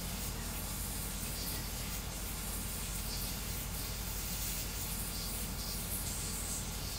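Voron 3D printer running a fast print: a steady hiss from its fans and motion, with brighter high-pitched spells that come and go every second or so as the toolhead moves.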